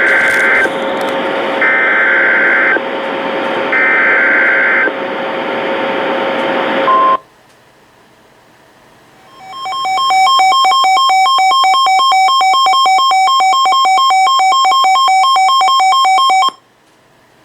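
Mock Emergency Alert System broadcast: three short screeching SAME header data bursts over a static-like hiss with steady hum tones, then, after a gap of about two seconds, a rapidly pulsing two-tone alert signal lasting about seven seconds.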